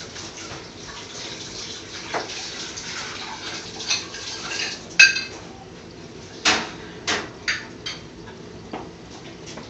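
Metal utensils clanking against a stainless-steel deep fryer and its wire basket: one sharp, ringing clank about halfway through, then several lighter knocks, over a steady hiss of hot frying oil.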